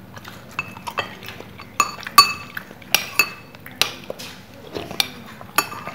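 Spoons clinking against a ceramic soup bowl: a string of irregular sharp clinks, each with a short ring, the loudest a little after two seconds in.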